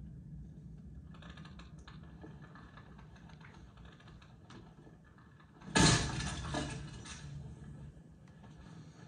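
Quiet film soundtrack heard in a screening room: a low hum with faint scattered clicks, then a sudden loud noise about six seconds in that dies away over about a second, with a smaller one just after.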